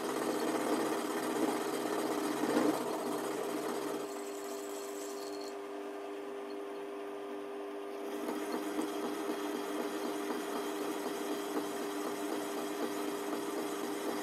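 Small Chinese metal lathe running with a steady whine from its motor and drive, while the tool cuts the spinning workpiece. The sound drops a little about four seconds in and comes back up about eight seconds in.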